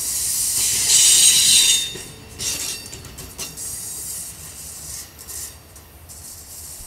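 Amtrak Superliner bi-level passenger cars rolling past on a curve, their wheels squealing high and loud for about a second, early in the passing. The squeal then fades to a rumble with a few clicks of wheels over rail joints as the last car moves away.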